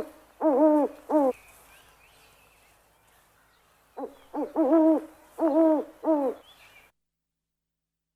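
Owl hooting in two runs of short, rich hoots that bend in pitch: the last few notes of one run at the start, then after a pause of nearly three seconds a second run of about six hoots. Faint high chirping sits behind the hoots, and the recording cuts off abruptly near the end.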